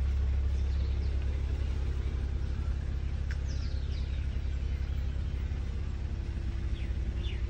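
A steady low mechanical hum, like a motor or engine running, with a few faint chirps about three seconds in.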